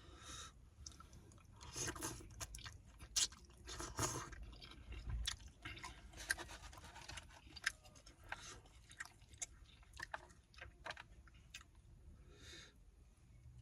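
A person chewing a mouthful of Indian food (naan, rice and spicy curry) close to the microphone, with irregular wet smacks and small clicks.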